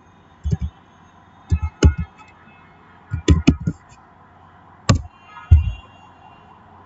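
Computer keyboard and mouse clicks in short, scattered clusters, with the loudest pair about five seconds in.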